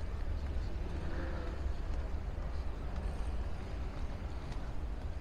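Airport terminal ambience: a steady low rumble with a faint wash of background noise and a few light scattered clicks.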